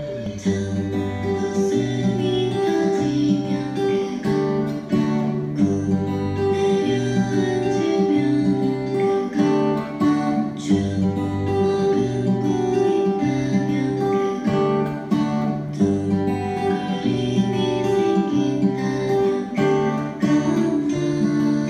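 Crafter cutaway acoustic guitar played fingerstyle in a steady arpeggio pattern, with a low bass note that changes about every second under the picked upper strings.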